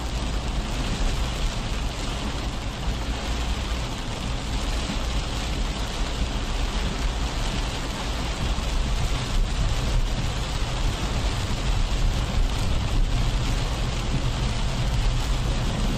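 Heavy rain pouring down on open tarmac: a steady, dense hiss with a deep rumble underneath, growing a little louder toward the end.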